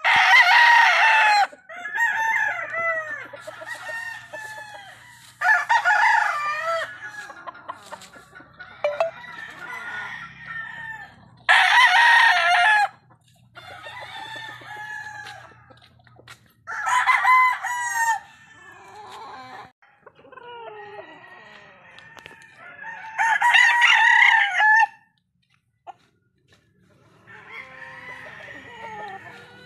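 Sweater gamefowl roosters crowing, loud full crows about every six seconds, with fainter crows and clucking calls between them.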